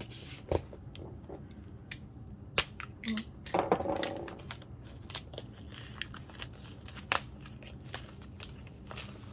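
Clear plastic shrink wrap being peeled and crumpled off an album, in irregular crinkles and sharp snaps, busiest a few seconds in. A steady low hum runs underneath.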